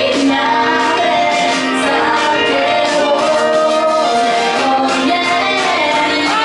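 A woman singing a pop song live into a microphone, with instrumental accompaniment and a steady beat.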